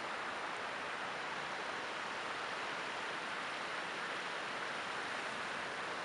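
Creek water running over a low rock ledge: a steady, even rush with no change.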